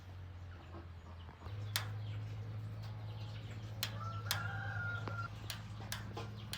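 A chicken clucking, with one drawn-out call near the middle, over a steady low hum and scattered sharp clicks.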